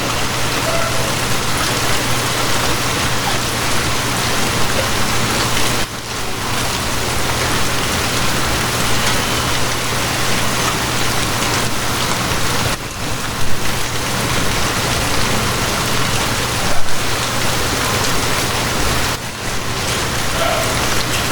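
Steady heavy rain pattering, with a low steady hum underneath and a couple of louder single hits partway through.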